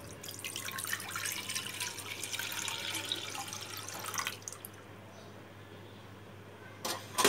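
Milk poured from a cup into a nonstick frying pan, splashing steadily for about four seconds before the stream stops. A few sharp knocks near the end.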